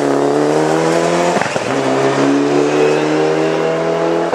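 Rally car engine at high revs under hard acceleration, its pitch slowly climbing. It breaks off briefly about a second and a half in, then picks up again and climbs.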